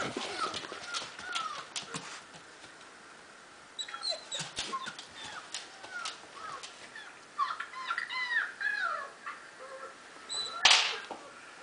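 German shepherd puppies whimpering and squealing, played back from a video: many short, high, arching cries in quick runs, with a short lull between them. A single sharp thump near the end is the loudest sound.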